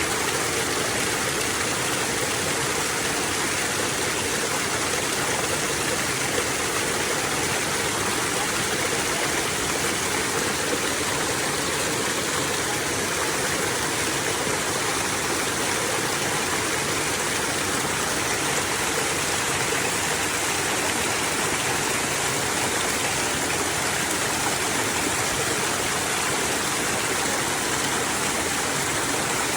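Running water rushing steadily, a continuous even wash like a stream or small waterfall.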